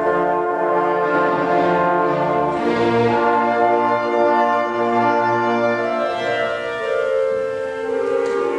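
Orchestra playing a slow classical passage in long held chords, the harmony shifting a few times.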